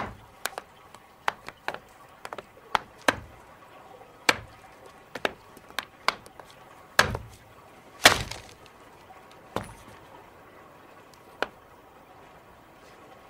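Stone tool knocking and scraping against bone and the rock beneath as meat is cut from an animal leg bone: a string of irregular sharp knocks that thin out and stop near the end.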